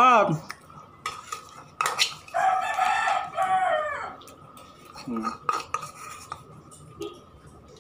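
A rooster crows once, about a second and a half long, starting a little after two seconds in and falling off at the end. Around it, a metal spoon clicks and scrapes against a small ceramic bowl as someone eats.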